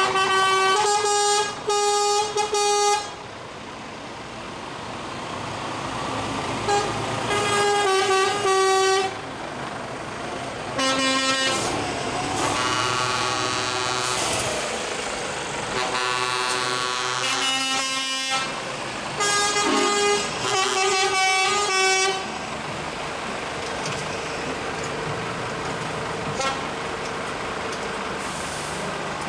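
Trucks in a slow convoy sounding their air horns in repeated loud blasts, each about one to three seconds long, over the steady running of their diesel engines. The horn blasts stop for roughly the last quarter, leaving only the engines.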